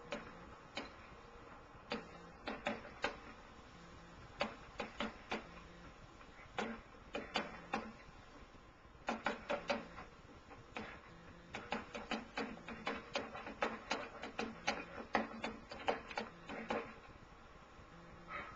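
Boxing gloves punching a heavy bag in quick combinations of two to five hits, with short pauses between flurries and the most hits in the second half. The sound is heard through a television's speaker.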